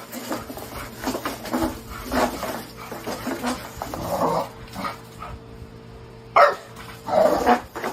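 A dog barking and vocalizing in a string of short sounds, with the loudest bark about six and a half seconds in.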